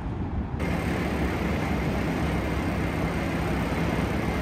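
Steady city traffic rumble, a dense wash of vehicle noise that fills out suddenly about half a second in.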